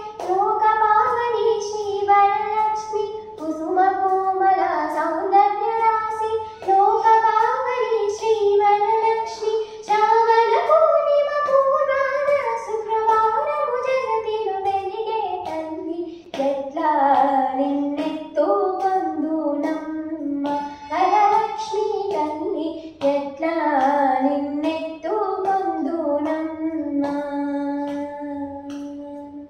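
A girl singing a Telugu devotional song to Goddess Varalakshmi, one voice with no accompaniment, phrase after phrase, ending on a long held note near the end.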